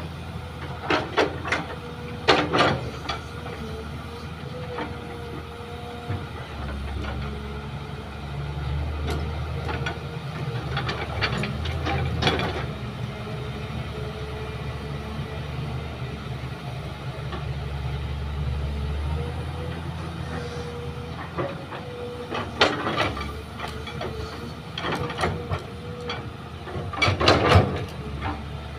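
Kobelco hydraulic excavator's diesel engine running steadily, getting louder in the middle while the machine digs and swings. Several bursts of clattering thuds come about a second in, near the middle, and again toward the end, as loads of soil and stones drop from the bucket into the dump truck's bed.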